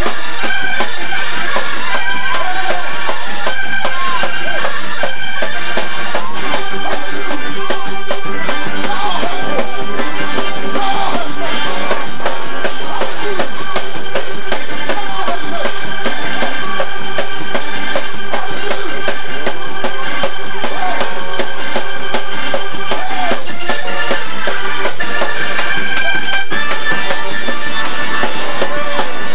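Loud gospel praise-break music: an organ holding chords over a fast, driving beat from a drum kit and tambourine.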